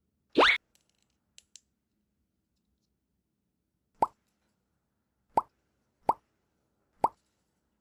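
Cartoon-style plop sound effects: one quick rising swoop about half a second in, then four short rising plops from about four seconds in, roughly a second apart.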